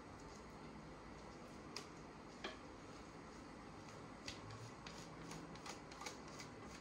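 Faint scraping and light ticks of a utensil against a ceramic mixing bowl as thick pudding batter is scraped out. The taps are a handful of short clicks, coming more often in the second half.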